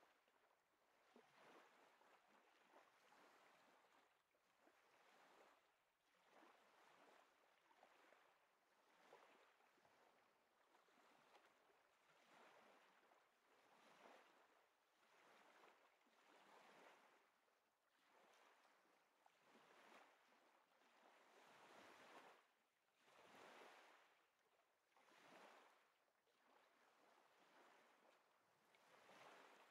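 Very faint sea surf: a soft rushing hiss that swells and falls back every second or two as waves wash in.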